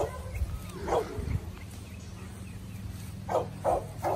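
Dog barking in short single barks: one at the start, one about a second in, then three quick ones near the end.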